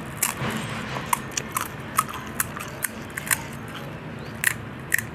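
A crisp puri shell crackling as it is cracked open and stuffed with filling by spoon: about a dozen sharp, irregular clicks and crunches, a few with a short clink of the spoon against the glass bowl.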